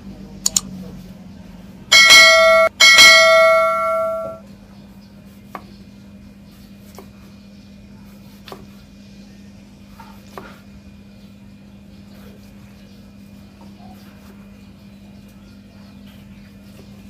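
A mouse-click sound effect, then a notification-bell chime sounding twice in quick succession and ringing out over about two seconds; this is the audio of a subscribe-button overlay. Faint knife taps on a wooden cutting board follow as tomatoes are sliced.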